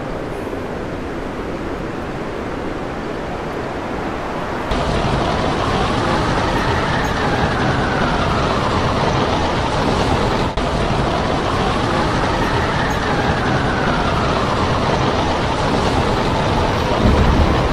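Storm wind and heavy sea rushing against a ship at sea, heard from on deck, with wind buffeting the microphone. About five seconds in the noise gets louder and fuller, and a faint whistle of wind rises and falls slowly.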